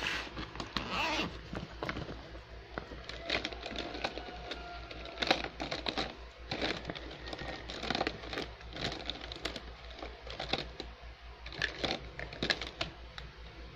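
Gakken New Block plastic building pieces clicking and clattering against each other as hands rummage through them in a clear vinyl bag, with the bag's plastic crinkling. Irregular sharp clicks come throughout, over a faint steady low hum.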